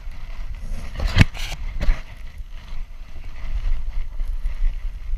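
Wind buffeting a GoPro strapped to a dog's back, with a low rumble throughout. Sharp knocks and scuffs come from the camera harness as the dog moves among rocks, the loudest about a second in and another just before two seconds.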